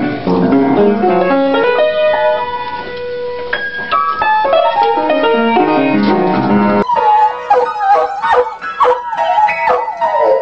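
Piano playing a melody of stepped notes, then, after a sudden change about seven seconds in, a dog howling along to music in a wavering, sliding pitch.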